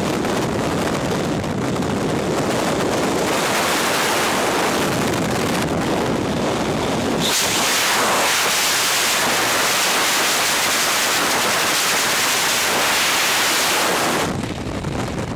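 Freefall wind rushing hard over a helmet camera's microphone, a loud, steady rush that turns hissier about halfway through and eases, turning uneven, near the end.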